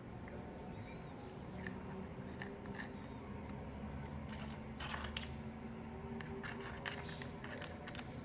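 Scattered small clicks and light rustling of objects being handled, with a sharper cluster about five seconds in, over a faint steady hum.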